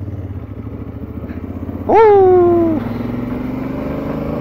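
A Honda Africa Twin CRF1000L parallel-twin engine running as the bike climbs, its note rising slowly in pitch near the end as it picks up speed. About two seconds in, a loud call falls in pitch and lasts just under a second.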